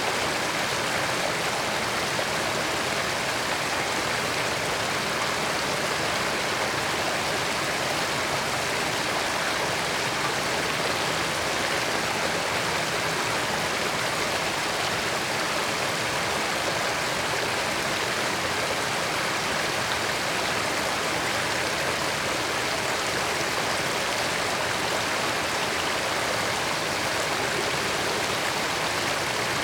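Creek water flowing over rocks, a steady rush.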